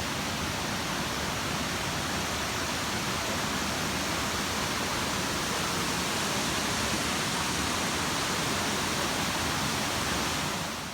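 Waterfall, a steady rush of falling water, cutting off suddenly just before the end.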